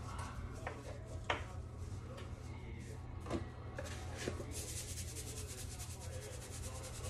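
A few light knocks as a roasting pan and a seasoning container are handled, then from about four and a half seconds in a fast, even rattle of seasoning being shaken out of a shaker canister.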